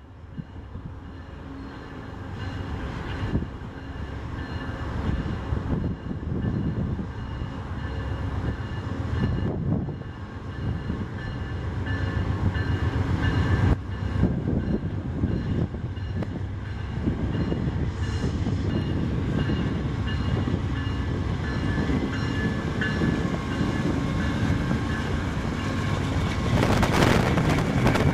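Amtrak GE Genesis diesel locomotive hauling a passenger train toward the platform, its engine rumble and the rolling of the train on the rails growing steadily louder as it approaches, loudest near the end as it passes close.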